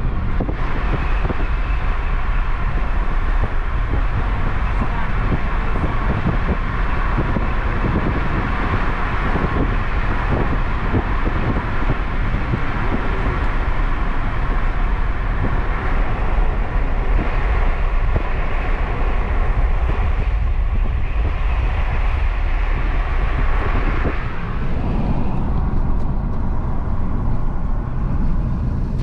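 A car driving on the road: a steady low rumble of engine and tyres with a hiss above it, and the hiss eases off near the end.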